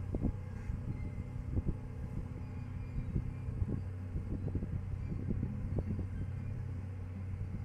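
Steady low engine hum, with irregular thumps of wind buffeting the microphone.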